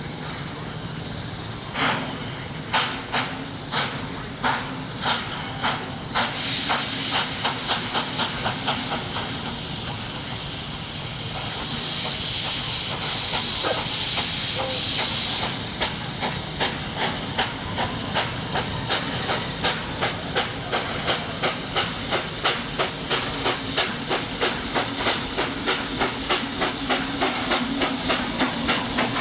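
Baldwin-built narrow-gauge steam locomotive chuffing as it pulls away: slow exhaust beats that quicken to about three a second. About halfway through comes a loud hiss of steam lasting several seconds. After that it settles into a steady run of regular chuffs.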